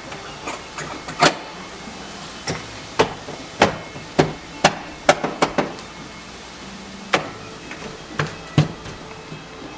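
About a dozen sharp, irregular knocks and taps on the door of a 1997 Chevy Tahoe while its interior door handle parts are being fitted, most of them bunched together in the middle with a few more near the end.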